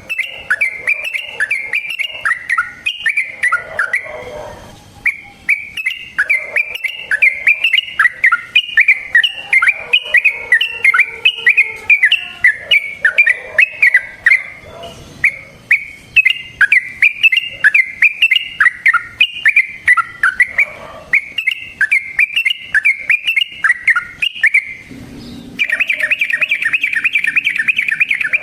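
Yellow-vented bulbul (trucukan) singing long runs of quick, bubbly chattering phrases with short breaks, going into a fast, even rolling trill near the end.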